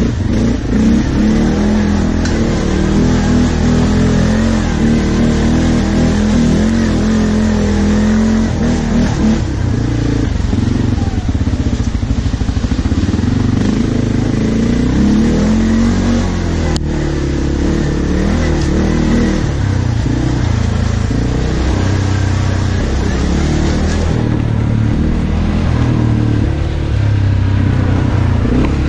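ATV engine running while riding a rough dirt trail, its pitch rising and falling again and again with the throttle.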